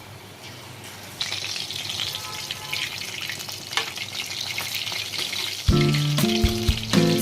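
Battered chicken pakoda pieces frying in hot oil in a kadhai: a steady crackling sizzle that starts about a second in. Background music with a beat comes in near the end.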